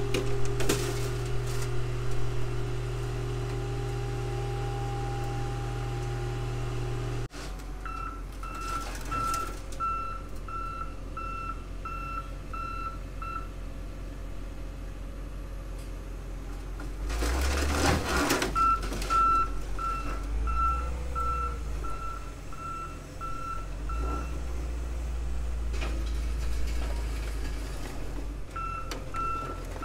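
A car crusher's engine runs steadily. After an abrupt change, a heavy machine's reversing alarm beeps about twice a second in three runs, over engine rumble, with a loud rush of noise lasting about a second around the middle.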